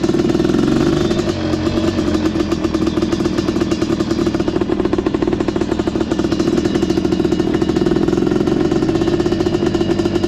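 Suzuki LT500 ATV engine running steadily under way on a gravel road, its revs easing briefly about a second in before settling back to a steady pace.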